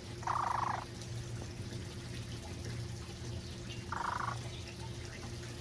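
A pet parrot giving two short, raspy, croaking calls, one near the start and one about four seconds in, each about half a second long.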